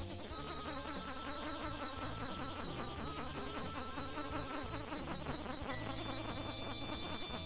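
Loud, high-pitched droning of insects in a dense chorus with a fast pulsing texture. Quieter background music runs underneath.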